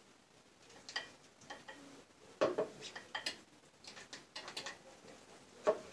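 A spoon clicking and scraping against a glass jar and a plate as mayonnaise is spooned out and spread: a scattering of light taps and clinks, bunched mostly in the middle.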